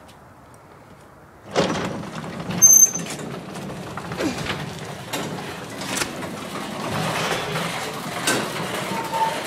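Craftsman half-horsepower garage door opener starting about a second and a half in and running steadily as the door travels. A brief high-pitched chirp comes about a second after it starts, with scattered clicks and rattles throughout.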